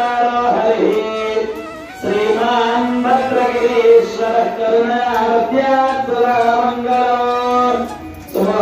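A devotional melody sung in Carnatic style, with long held, wavering notes. It breaks off briefly for breath about two seconds in and near the end.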